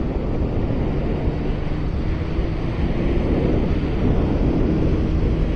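Steady wind rush buffeting a microphone inside a motorcycle helmet, with the motorcycle's engine running underneath at a steady cruising speed.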